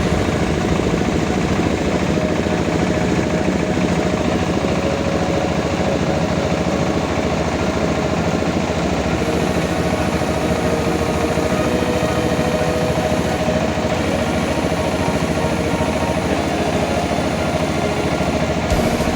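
Rice milling machine running steadily, a continuous loud engine drone with a fast, even beat.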